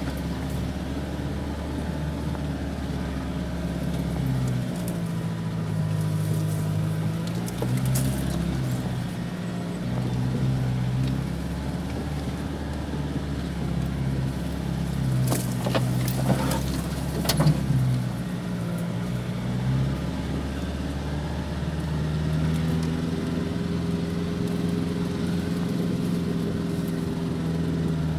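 2006 Nissan Navara D40's 2.5 dCi four-cylinder turbodiesel pulling slowly off road in four-wheel-drive low range, its note rising and falling gently with the throttle. A few sharp knocks and rattles come a little past the middle.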